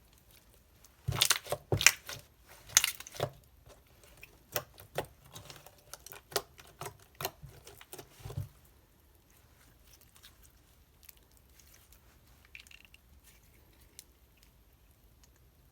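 Beaded slime being squished and pressed by hand, giving a run of irregular sticky clicks and crackles for several seconds. Then only a few faint ticks.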